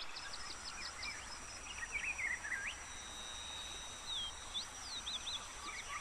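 Wild forest birds calling over a faint background hiss. A quick run of short high chirps opens it, warbling phrases follow about two seconds in, and a long steady whistle that drops in pitch comes near the middle, with scattered short notes after it.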